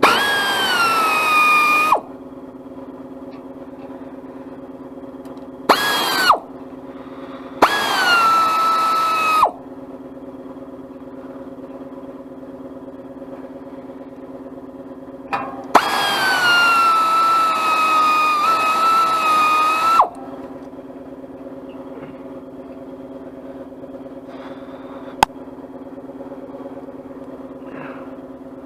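Power drill running in four bursts, the longest about four seconds, its whine jumping up at each start and sagging as it takes the load of spinning out bolts. A steady low hum runs underneath.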